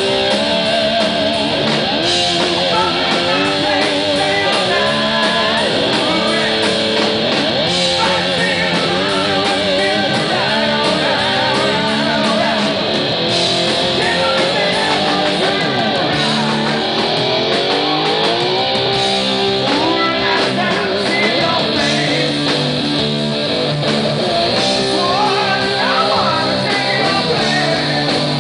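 Live rock band playing electric guitar, bass guitar and drums, the lead electric guitar bending notes with a wide vibrato and sliding upward in pitch several times in the second half.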